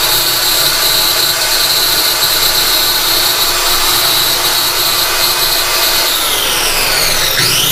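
Corded electric circular saw running at speed with a steady high whine after spinning up. About six seconds in the pitch sags, and near the end it dips sharply and winds back up.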